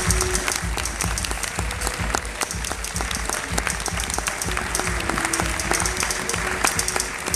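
Audience applauding steadily, a dense patter of hand claps, over music played through the venue's sound system during a fashion show's finale walk.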